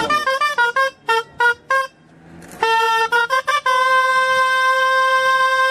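Gralla, the shrill Catalan double-reed shawm played for human towers, playing a melody of short, sharp notes, pausing briefly, then more notes that end in one long held note.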